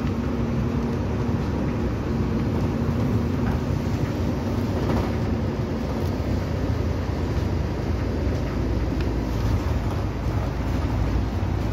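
A city bus's engine running and its cabin noise, heard from inside the bus: a steady low rumble with a faint hum.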